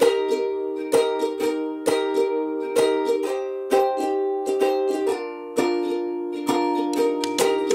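Background music of strummed plucked-string chords, struck about once a second.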